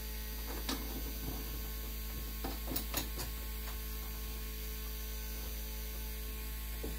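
A few light knocks and clicks as a small speaker box is held and fitted against a school bus's sheet-metal ceiling, most of them between two and three seconds in, over a steady low hum.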